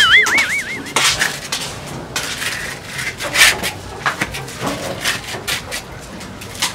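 Irregular knocks, scuffs and rubbing sounds. A short warbling comic sound effect plays during the first second.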